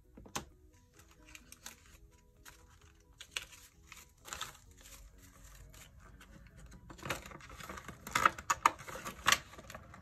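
Paper banknotes rustling and flicking as bills are handled and tucked into a plastic cash envelope. The handling noises are sparse at first, then come as a run of sharper crinkles and taps in the last few seconds. Soft background music plays underneath.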